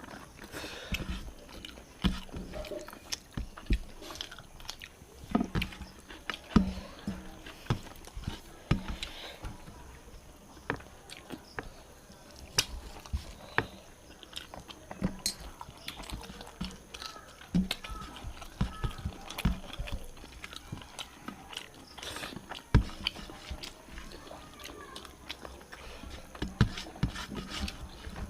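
Eating sounds: chewing and biting with irregular clicks and light knocks of hands and utensils on plates, from a meal of rice with katla fish curry, fried greens and salad.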